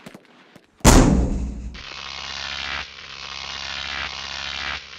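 Intro sound effects: one loud boom about a second in, then a rasping mechanical rattle that swells, cuts off and starts again twice.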